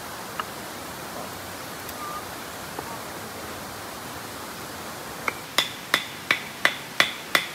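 A steady rush of running water. About five seconds in, sharp ringing metallic taps begin, evenly spaced at about three a second.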